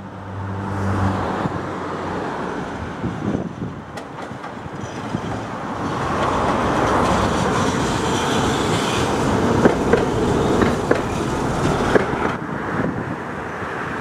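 Two-car Tatra T3SU tram train passing along its tracks: the wheels run on the rails, with a few sharp clicks over rail joints, and the sound builds to its loudest in the second half as the tram comes close.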